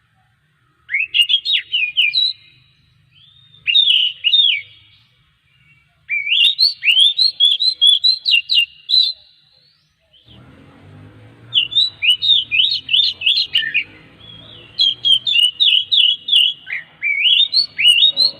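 Oriental magpie-robin (kacer) singing in bouts of quick, sharply rising and falling whistled notes, separated by short pauses. A faint low background hum comes in about ten seconds in.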